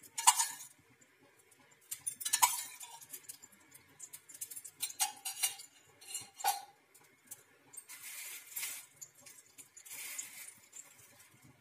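A metal spoon clinking against steel bowls and a pan, four separate clinks spread out with quiet between them. Two brief soft hisses follow near the end.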